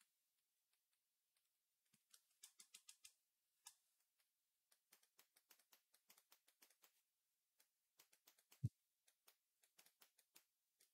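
Very faint, irregular clicks and taps in runs of a few a second, with one louder low thump about three-quarters of the way through.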